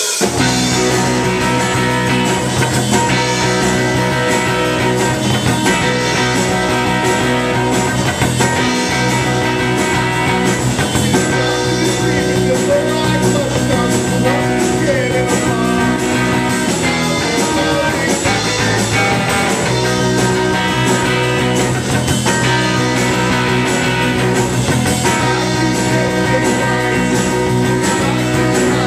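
Live rock band playing a song: electric guitar strummed with a man singing into the microphone, loud and steady.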